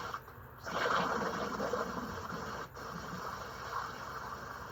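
Steady rushing noise of hurricane wind, with two brief dips.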